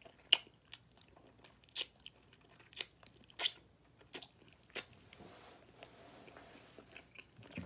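Close-up eating sounds of a man biting into and chewing barbecue-sauced ribs. A sharp wet mouth click comes about once a second for the first five seconds, then the chewing goes quieter.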